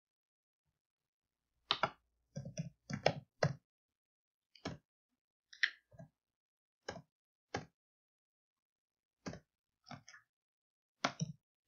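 Computer keyboard keystrokes and mouse clicks: a dozen or so short, irregular taps, some in quick little runs, with silent gaps between.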